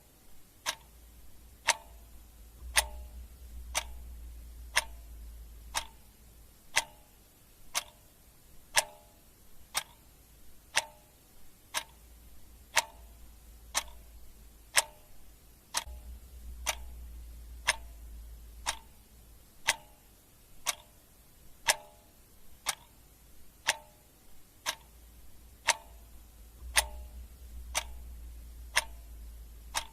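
Clock ticking sound effect: sharp, even ticks at about one a second, marking off the seconds of a countdown timer.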